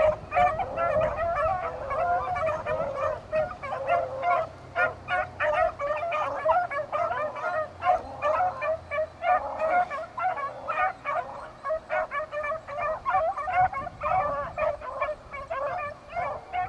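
A pack of beagles baying together in a steady, overlapping chorus of short calls, giving tongue as they trail a rabbit's scent line.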